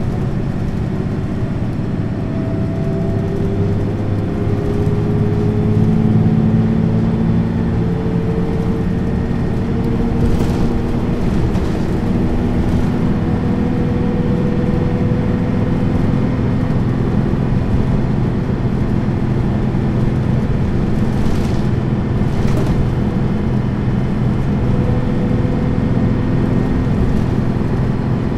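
Neoplan N 4411 midibus under way, heard from on board: the engine pitch climbs as the bus accelerates through the first ten seconds, then holds at a steady cruising drone.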